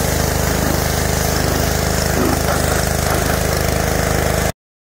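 Pressure washer running steadily, its small engine droning under the hiss of the water jet spraying a car's removed floor carpet. The sound cuts off abruptly near the end.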